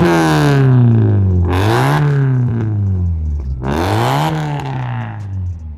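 Turbocharged EJ205 AVCS flat-four of a 2001 Subaru Impreza WRX, breathing through a straight-through 76 mm exhaust with a single thin resonator, being revved: the engine note climbs and falls back about every two seconds, twice in quick succession, then drops toward idle near the end. The exhaust note is meaty.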